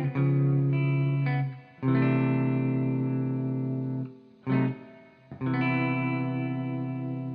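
Background music: guitar chords struck and left to ring out, a new chord every second or two.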